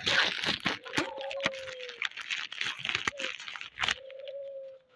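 Plastic bread packet crinkling and rustling as it is handled to be opened. Over it a chicken gives two drawn-out, slightly falling calls of about a second each, the first about a second in and the second near the end.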